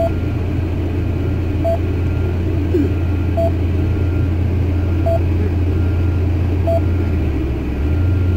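Cardiac monitor of a defibrillator-pacemaker giving a short beep with each detected heartbeat, about once every 1.7 seconds (around 35 a minute). This is a slow rhythm while transcutaneous pacing has not yet captured. Under it runs a steady low engine rumble.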